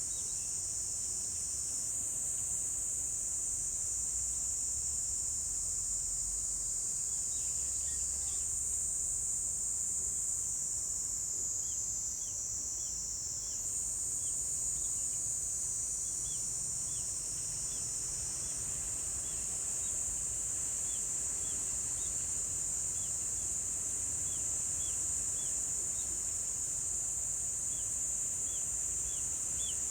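Chorus of insects singing, a continuous high, shrill trill. From about twelve seconds in, a second, lower run of short repeated chirps joins it.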